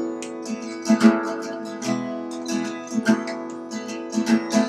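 Acoustic guitar strummed in a steady rhythm, with chords ringing on between the strokes.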